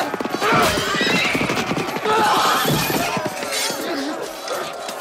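Battle sound from a film: men shouting and crying out over horses galloping and neighing, with a dense run of hoofbeats through the first three seconds.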